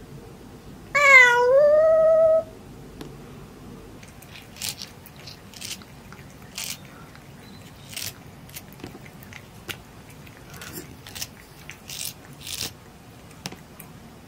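A kitten meows once, about a second in: one drawn-out call that dips and then rises in pitch. It is followed by a scatter of short, faint scratchy noises.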